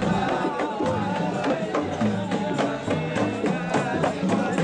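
Music with a steady drum beat and voices singing.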